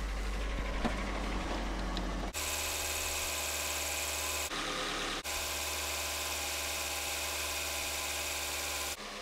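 A Nissan Frontier's four-cylinder engine idling steadily just after a radiator replacement, its water pump circulating the fresh coolant to burp trapped air out of the cooling system. The sound changes abruptly a couple of times partway through.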